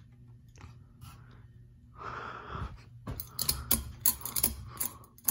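Ceiling fan's metal bead pull chain rattling and clicking as it is handled, with a sharp pull-chain switch click at the very end; the fan motor's steady low hum runs underneath. A short breathy rush about two seconds in.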